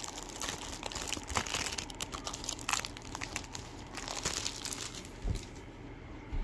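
Close, irregular crinkling and crackling made up of many sharp clicks, thinning out after about five seconds, with a low thump near the end.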